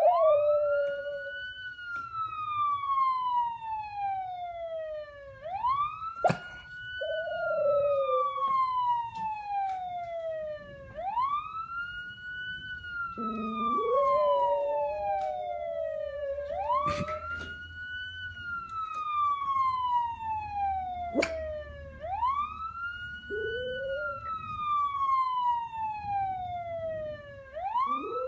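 An emergency-vehicle wail siren repeating its cycle, each one a quick rise in pitch followed by a slow fall, about every five and a half seconds. A Maltese dog howls along with it in long, lower, wavering howls, the longest about halfway through.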